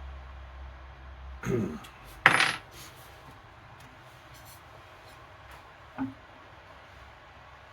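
Metal parts of a belt and disc bench sander being handled and adjusted, with the motor off: a short scrape, then a loud metallic clank with a ringing tail about two seconds in, a few light clicks, and a dull knock about six seconds in.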